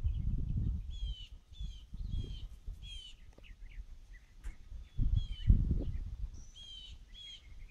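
Small birds chirping in short, repeated calls that fall in pitch, over gusts of low rumbling wind noise on the microphone. The rumble is loudest at the start and again about five seconds in.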